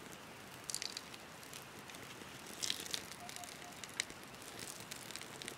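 Wood campfire crackling, with sharp pops about a second in, near the middle and about four seconds in.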